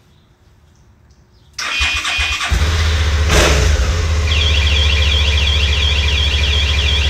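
Suzuki V-Strom DL650's V-twin engine cranked on the electric starter for about a second, catching and settling into a steady idle with a brief rev soon after. A few seconds in, an electronic alarm starts over the engine, its high tone sweeping rapidly up and down.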